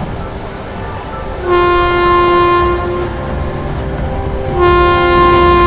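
Train whistle sounding two long, steady blasts, each about a second and a half, over a low rumble. Two long blasts are the railroad signal that the train is about to move off.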